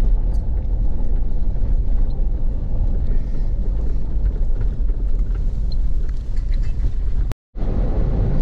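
Cabin noise of a car driving off-road over desert gravel: a steady, heavy low rumble of engine and tyres with scattered light rattles. The sound cuts out for a moment near the end.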